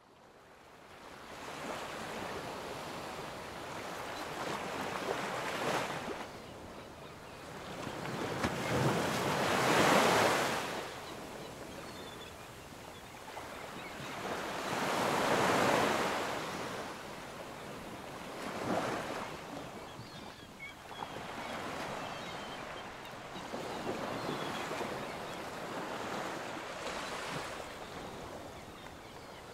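Ocean surf: a rushing wash of waves breaking and running up the beach, swelling and fading every few seconds.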